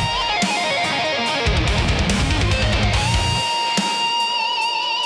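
Guitar-led rock music with a lead guitar line, ending on a long held note with vibrato from about three seconds in.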